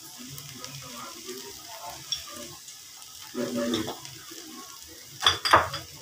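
Okra frying in a wok with a steady low sizzle. Near the end come a few sharp clatters of kitchen utensils.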